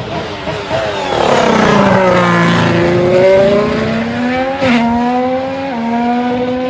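AI-generated Formula 1 car engine sound: a single engine note that sinks in pitch and then climbs again, jumping up abruptly twice in the second half like upshifts.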